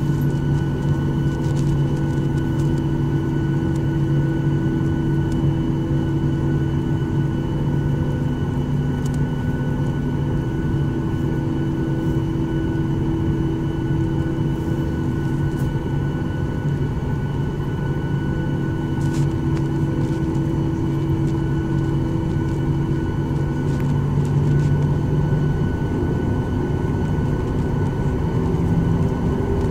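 Boeing 737 MAX 8's CFM LEAP-1B engines idling, heard from inside the passenger cabin: a steady hum with several steady tones over a low rumble. The lower tones fade and shift near the end.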